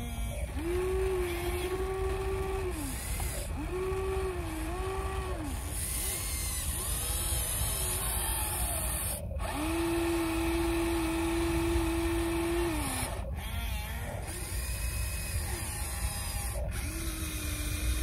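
Huina RC excavator's electric motors whining in a series of separate movements. Each whine rises in pitch as it starts and drops away as it stops, the longest holding steady for about three seconds near the middle as the bucket digs. A constant low rumble runs underneath.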